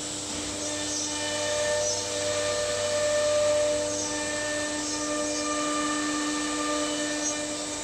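Stylecnc S4 automatic nesting CNC router running, a steady machine whine made of several tones that swell and fade over a constant low hum, loudest about three seconds in.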